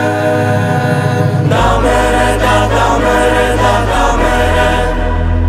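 Advertising jingle music with a choir singing held chords over a bass line; the bass note changes about one and a half seconds in and again about four seconds in.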